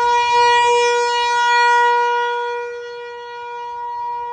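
Outdoor tornado warning siren sounding a steady, high wailing tone, loud at first and fading somewhat after about two and a half seconds.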